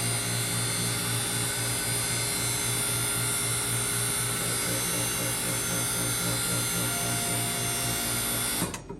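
Orwak 5040 hydraulic compactor's electric-motor-driven pump running steadily, with a low hum and several steady higher tones, then cutting off abruptly near the end.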